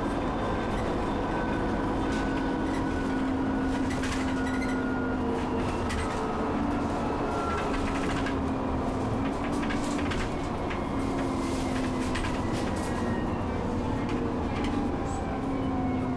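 Inside an Alexander-Dennis Enviro 400 double-decker bus running at speed: a steady engine and road drone with whining tones that drift slowly lower, and the body rattling and clicking now and then. The uploader says this bus's turbo wheezes badly.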